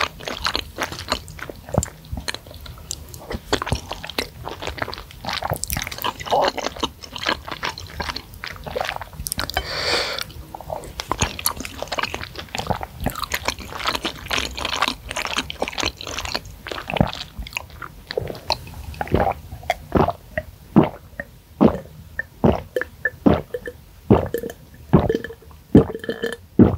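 Close-miked mouth sounds of someone eating spicy seblak with meatballs: wet chewing, squishing and lip smacks in an irregular run, with occasional slurps of noodles and broth. Near the end she sips and swallows broth straight from the bowl.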